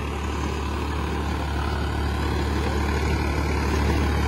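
Farmtrac 60 tractor's diesel engine running steadily under load while it pulls a working rotavator through the soil, with a steady low hum and a dense noise above it. The engine holds its speed without stalling, even with the extra weight of men riding on the implement.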